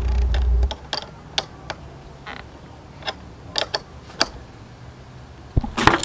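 Hands reconnecting a car battery cable: scattered metallic clicks and small knocks at an uneven pace, after a dull low thud at the start.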